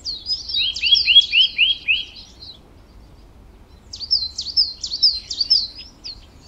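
Small birds chirping in quick runs of repeated down-slurred notes, in two bouts with a pause of about a second and a half between them.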